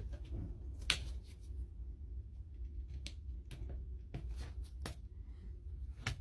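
Scattered clicks and light knocks from handling a Dewalt DCH273 SDS rotary hammer at its chuck, the sharpest about a second in, over a steady low hum.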